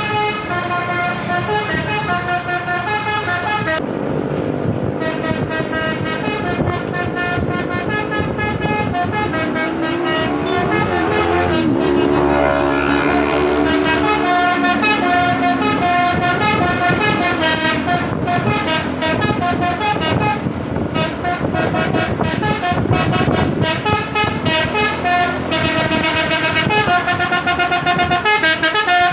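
Multi-tone telolet air horn on a Tunggal Jaya tour bus playing its tune over and over: short tuneful toots in repeating patterns, with a stretch of sliding pitches about halfway through.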